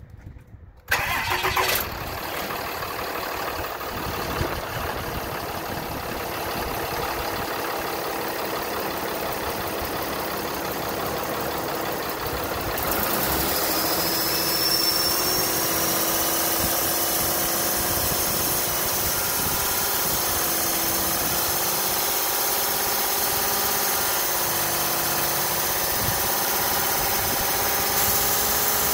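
Ram 5500's Cummins 6.7-litre inline-six turbodiesel starting about a second in, then idling steadily. It gets a little louder about halfway through.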